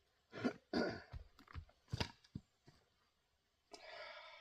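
Several short, separate knocks and rustling handling sounds, with a brief hazy noise near the end.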